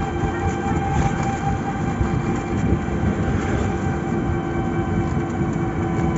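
A motorised three-wheeler running at a steady speed, heard from inside its plastic-sheeted cab: a steady, unchanging whine from the drive over rumbling road and wind noise.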